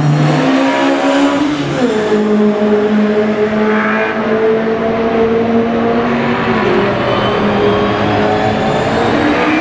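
Ford Falcon Sprint's V8 race engine running loud on track. Its note steps down about two seconds in and again near seven seconds, holding steady in between, and starts to climb again at the end.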